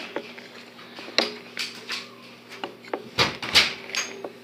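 Irregular clicks, knocks and clatters of small household objects being handled, the loudest two close together about three seconds in, over a faint steady hum.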